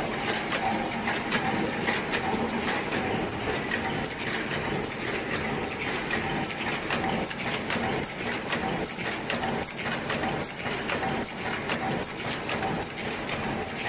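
Automatic paper cup forming machine running: a steady, rapid clatter of mechanical clicks over an even hum.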